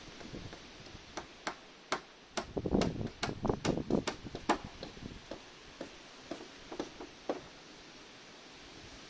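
Claw hammer driving nails into roof battens: a run of sharp taps, about three or four a second at their busiest, loudest in the middle of the run and thinning to a few lighter taps toward the end.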